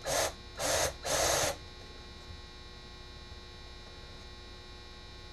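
Power drill boring a pilot hole in a wooden board, in four short bursts during the first second and a half, followed by a steady electrical hum.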